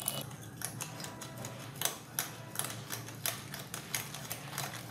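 A spoon clinking and scraping against a glass mixing bowl while it stirs a thick creamy mixture, with irregular sharp taps about twice a second.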